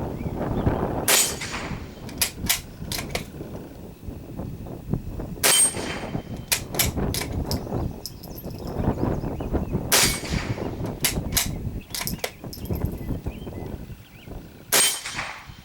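Glenfield Model 25 bolt-action .22 LR rifle fired four times, one shot every four to five seconds, with lighter clicks between shots as the bolt is worked.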